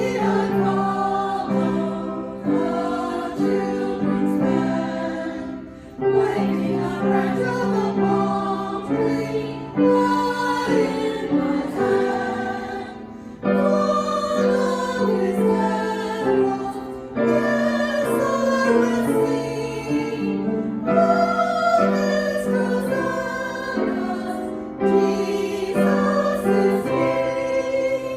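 Church music: a choir singing a slow hymn with accompaniment, phrase after phrase, dying away at the very end.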